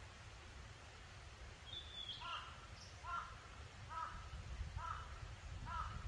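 A crow cawing five times, about a second apart, starting about two seconds in, with a brief high bird note just before the first caw.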